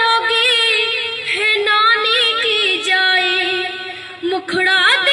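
A young girl singing solo, holding long notes with a wavering pitch; about four and a half seconds in she breaks off briefly and comes back in on a rising note.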